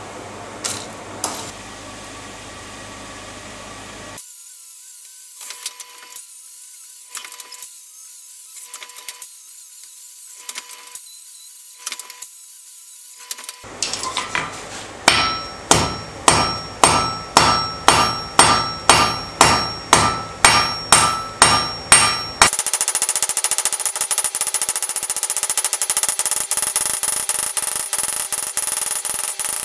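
Hand hammer striking hot steel rod on a steel anvil, about two ringing blows a second, drawing the rod out to a point. Before the blows come lighter, evenly spaced taps. After them comes a steady, loud, rapid mechanical rattle.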